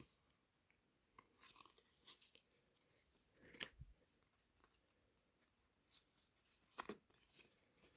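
Faint rustling and clicking of trading cards being handled and flipped through, a few brief rustles spread across the seconds.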